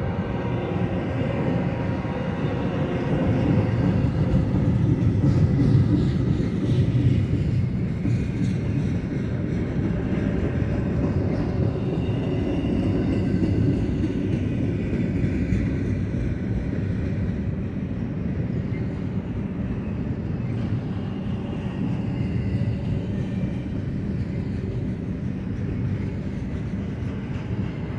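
Double-stack intermodal container train's well cars rolling past: a steady rumble of steel wheels on rail, a little louder about five seconds in.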